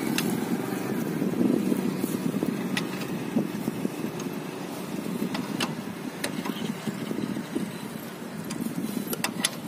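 A few sharp metal clicks from a socket wrench turning on a motorbike's oil drain bolt, over a steady low vehicle rumble.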